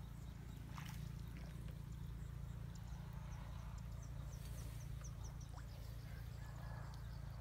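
Faint rice-paddy ambience: a low steady hum, with a quick series of about eight short high chirps from a small animal in the middle.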